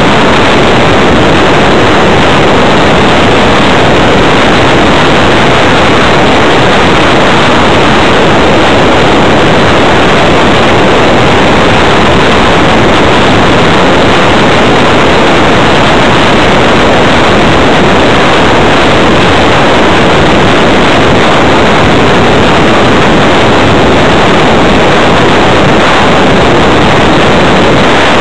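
Steady, very loud rushing of the airstream over the onboard keychain camera of a Multiplex Blizzard electric RC hotliner in flight, with no clear motor tone.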